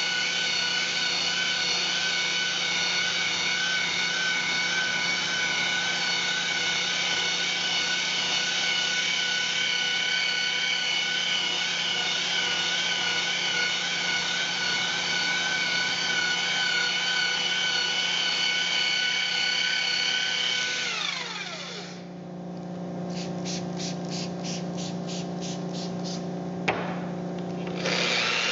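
Makita electric rotary polisher with a wool pad running at a steady whine as it buffs a wet solid-surface countertop. About twenty seconds in it winds down to a lower, quieter hum, with a quick run of short high hisses and a single click, and near the end it speeds back up.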